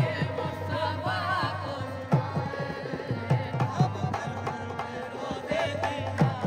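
Music: a singing voice over hand-drum strokes in a steady rhythm.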